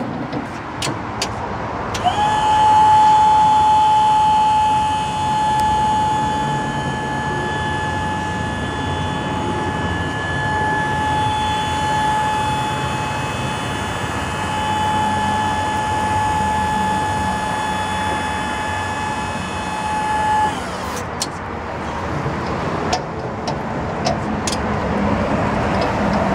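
Jungheinrich EMC B10 electric stacker's hydraulic lift pump motor running with a steady high whine as the forks rise up the mast. It comes in about two seconds in with a short rise in pitch, holds for about eighteen seconds and cuts off suddenly. A few clicks and knocks follow near the end.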